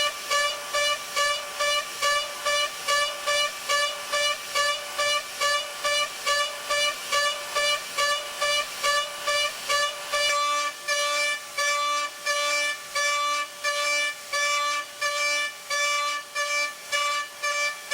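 High-speed CNC milling spindle cutting a pocket: a steady high-pitched cutting tone that swells and fades about twice a second as the end mill enters and leaves the material on each loop of the dynamic toolpath. About ten seconds in, the low background noise drops away and a fainter lower pulsing note joins in.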